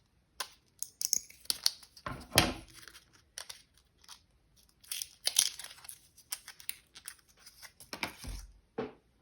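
Small packaging being handled and opened: irregular crinkling, rustling and tearing, with a couple of louder knocks, about two and a half seconds in and near the end.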